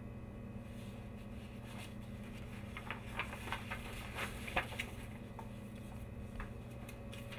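Sheets of paper rustling and tapping as they are shuffled and turned over on a wooden table, a cluster of short crisp rustles in the middle with the sharpest just after four and a half seconds. A steady low hum runs underneath.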